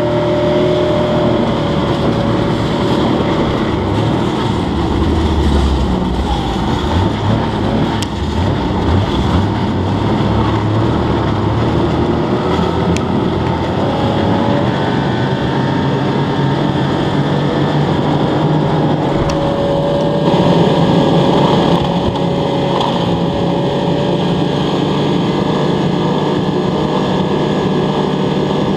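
Yamaha snowmobile engine running steadily while the machine travels over snow and lake ice.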